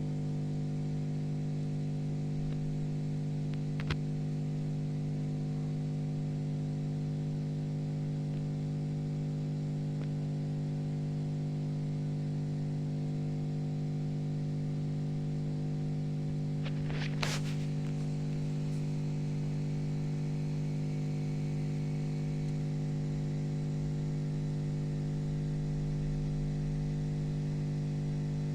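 Steady electrical hum with a faint hiss over it, holding one unchanging pitch. There is a single faint click about 4 seconds in and a brief clatter of clicks a little past the middle.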